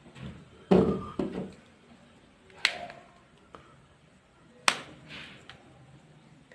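Handling noises: a dull knock about a second in, followed by two sharp clicks about two seconds apart.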